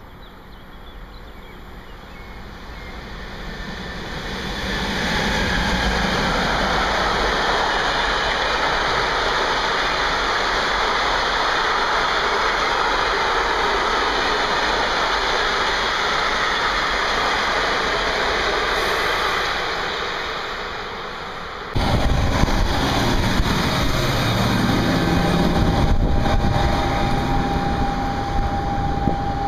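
Freight train hauled by an E186 electric locomotive passing: steady rolling noise of wagon wheels on rail that builds over the first five seconds, holds, and eases off near twenty seconds. Then an abrupt change to a train's running noise heard from on board, with a steady whine in the last few seconds.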